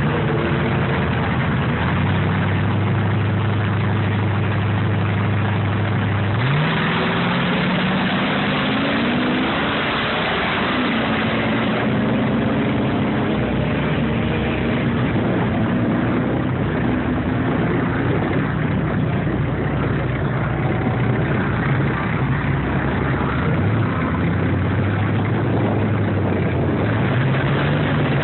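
Off-road race car engine idling steadily, then about six seconds in it revs up and pulls away, its pitch climbing in several rising sweeps through the gears over a rush of noise. It settles into a steady run, drops back toward idle, and picks up again near the end.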